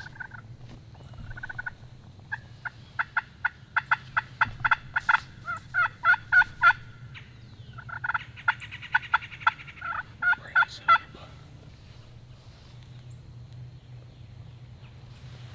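Wild turkeys calling: a quick run of sharp, evenly spaced yelping notes, a rattling gobble about eight seconds in, then a few more yelps.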